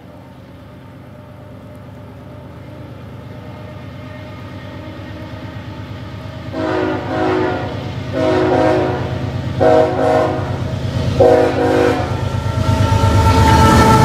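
An approaching CSX GE ES44AH diesel locomotive's engine rumble grows steadily louder. Its multi-chime air horn sounds four blasts, long, long, short, long, the road-crossing signal, starting about halfway in. The engine and rushing wheels grow loud near the end as the lead locomotive passes close by.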